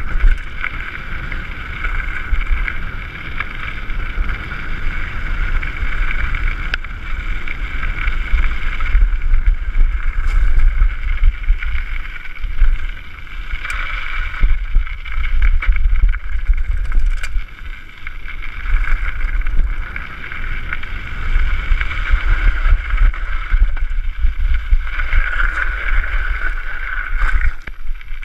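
Mountain bike running fast downhill on a gravel track: wind buffeting the microphone and the rumble and crunch of tyres on loose gravel, with a few sharp knocks from bumps.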